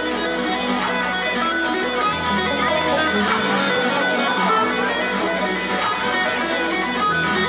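Electric guitar played live through an amplifier, a line of picked notes over a backing with a low bass line and a fast, steady beat of high ticks.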